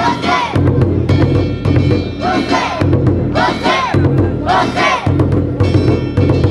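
Group of float bearers shouting short, loud calls about once a second, over the steady deep drumbeat of Japanese festival float music (hayashi).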